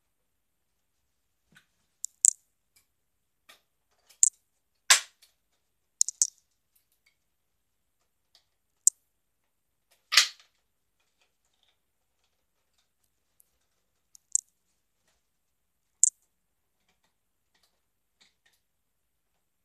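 Sharp plastic clicks and clacks from a Nerf blaster being handled and its parts worked, about a dozen separate snaps with quiet gaps between, one a little longer about halfway through.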